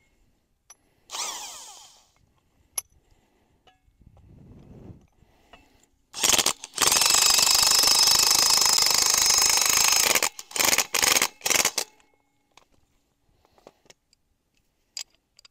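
Impact wrench driving a concrete screw anchor through a steel post bracket into a concrete foundation wall. One sustained run of about four seconds, then several short bursts. This brings the anchor down to almost touching the bracket.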